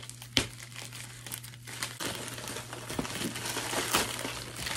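White plastic poly mailer bag crinkling as it is handled and pulled open, with a sharp snap about half a second in. The crinkling grows denser and louder from about two seconds in.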